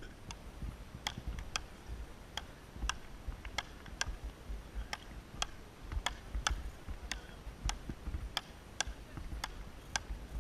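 Frescobol rally: a rubber ball struck back and forth with wooden paddles, sharp clacks at a steady pace of a little under two a second.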